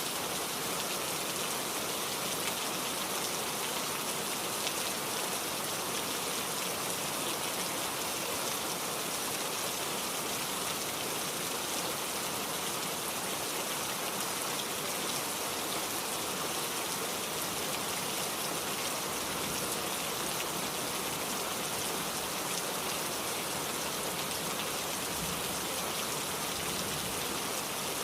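Heavy rain falling and pattering on surfaces in a steady, even hiss.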